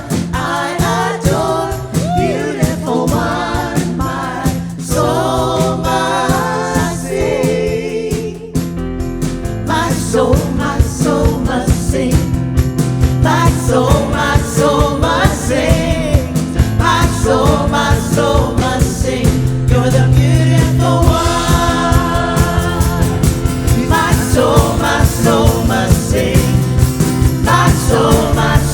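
Live worship band and singers performing a song. About nine seconds in, the music gets louder and fuller, with a steady drum beat under the voices.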